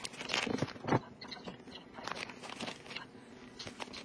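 Wire stirring arm of an electric popcorn pot turning over the pan, scraping and knocking a block of green candy coating and loose beads around. There are a few sharper scrapes and clicks in the first second, then fainter ones.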